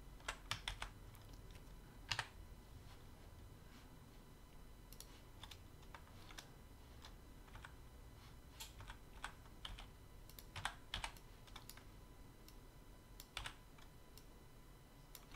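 Faint, scattered clicks of computer keyboard keys and mouse buttons, a few at a time with pauses between, as shortcuts are pressed while working in 3D modelling software.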